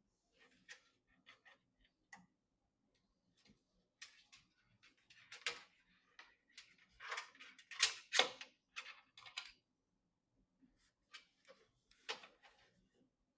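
Irregular small clicks, taps and rustles of hands handling computer parts and packaging, with a few sharper clicks about five and eight seconds in.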